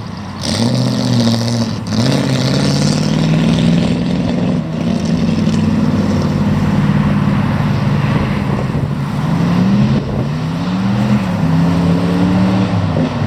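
Vintage pre-war sports car engine pulling away under acceleration. Its pitch climbs, drops sharply about two seconds in and again near the end as it shifts up a gear, then climbs again.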